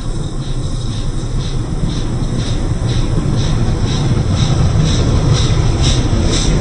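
LMS Royal Scot Class three-cylinder steam locomotive and its train approaching and running through the station, a low rumble growing steadily louder. Over the rumble is a quick, even beat of about three pulses a second that strengthens as it nears.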